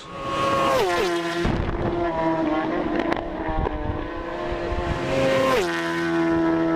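Carburetted motorcycle engine running while its carbs are being balanced. The revs drop back to a steady idle about a second in, climb slightly, then drop again near the end.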